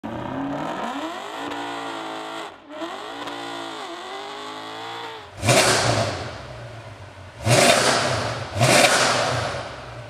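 Mercedes-Benz C63 AMG's 6.2-litre V8 breathing through an IPE valved exhaust, idling, then blipped three times in the second half, each rev sharp and loud and falling back to idle.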